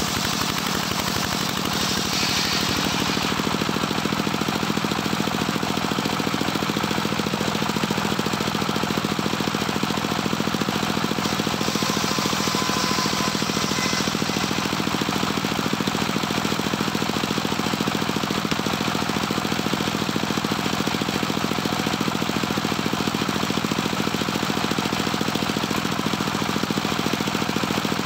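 Engine-driven homemade circular sawmill running steadily, its blade ripping teak boards, with a brighter hiss of the cut about two seconds in and again about twelve to fourteen seconds in.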